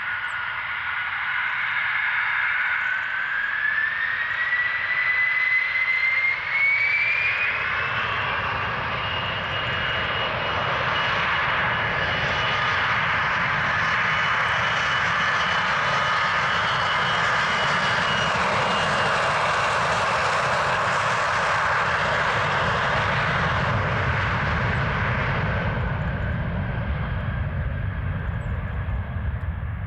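Gulfstream G550 business jet's two Rolls-Royce BR710 turbofans spooling up to takeoff power: a whine rising in pitch over the first several seconds, then steady jet noise at full thrust. Near the end the high hiss fades while a low rumble grows.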